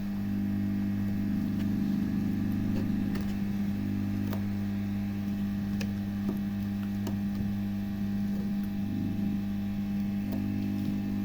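Hot-air tool running with a steady low hum while it softens old adhesive on a tablet's plastic frame, with a few faint ticks over it.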